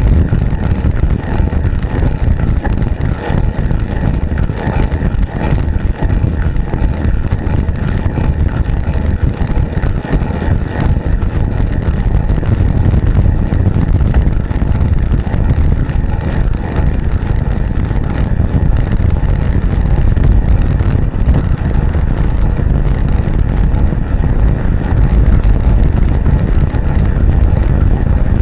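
Steady low rumble of wind on the microphone of a camera riding on a recumbent bicycle at speed.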